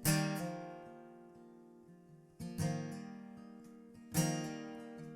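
Acoustic guitar strummed between sung lines: three chords, each struck and left to ring down, about a second in the first, one near the middle and one past the three-quarter mark.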